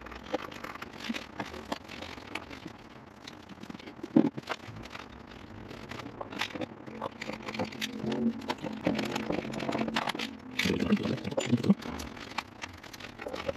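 Metal clicks, taps and scrapes of hand tools and a bolt being worked into place by gloved hands in a cramped diesel engine bay, a sharper click a little after four seconds and a few more near the end.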